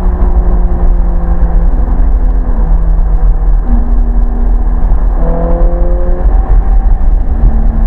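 Ferrari mid-engined V8 heard from inside the cabin on the move. Its note holds or drifts, then steps to a new pitch several times, over a heavy low rumble of road and wind.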